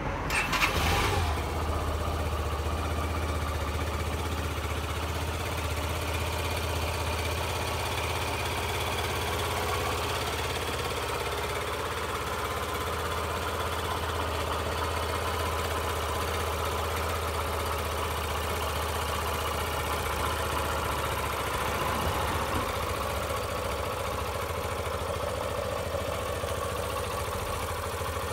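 Yamaha YBR125's air-cooled single-cylinder four-stroke engine starting and then idling steadily.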